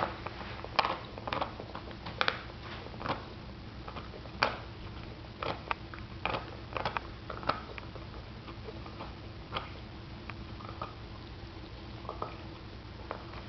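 Boston terrier gnawing a bone: irregular sharp clicks and scrapes of teeth on bone, busiest in the first half and thinning out later.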